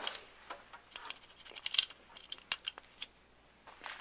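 Light metallic clicks and rattles from a Fox-body Mustang parking brake lever assembly as its locking pin is pulled and the spring-loaded self-adjuster winds up the cable slack, pulling the cable taut. The clicks come as a quick irregular run from about a second in, then thin out.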